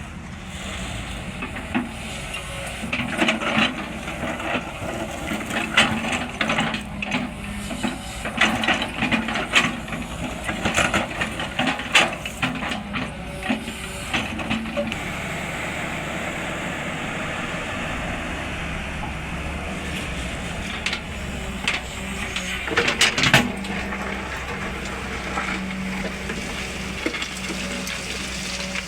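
Sany 210 excavator's diesel engine running steadily, with a stretch of irregular knocks and clatter over roughly the first half and another short burst of knocks near the end.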